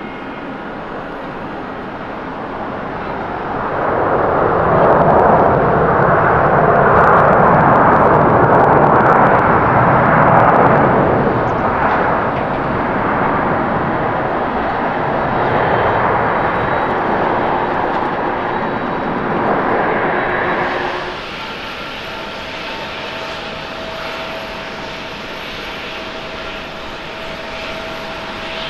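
Jet engines of a Japan Airlines Boeing 787-9 rolling out after landing: the roar swells loud about four seconds in, then eases off over the next fifteen seconds. After a sudden change about two-thirds of the way through, a steadier, quieter hum with a faint steady whine from a taxiing Boeing 777-200ER's engines.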